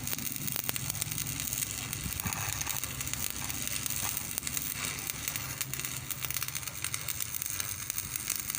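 Stick (arc) welding: the electrode arc crackles and sizzles steadily, with a steady low hum underneath.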